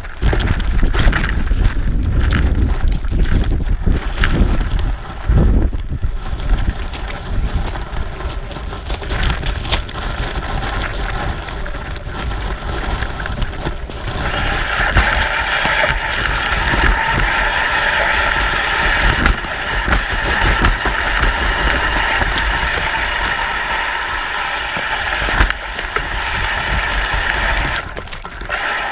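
Wind buffeting the microphone, with rushing road noise from riding. About halfway through, the gusty low rumble gives way to a steadier hiss.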